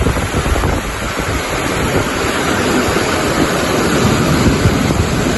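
Muddy river in flood rushing past in a steady, loud wash of water noise, with wind gusting on the microphone.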